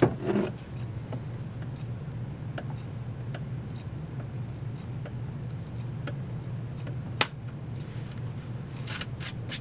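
Small hand-tool work on the wicker basket's hinge: a knock at the start, faint scattered ticks, one sharp click about seven seconds in, and quick light taps near the end, over a steady low workshop hum.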